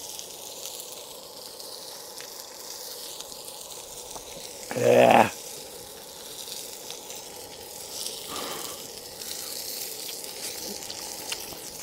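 Meat sizzling as it cooks, a steady hiss. About five seconds in, a man makes a brief, loud voiced sound, and a fainter one follows about three seconds later.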